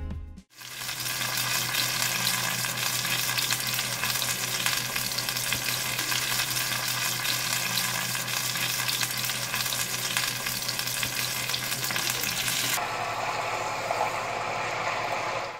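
Chopped cabbage, bell peppers and carrot sizzling in oil in a stainless steel frying pan, stirred with a wooden spatula. About thirteen seconds in, the sizzle turns duller as liquid goes into the pan.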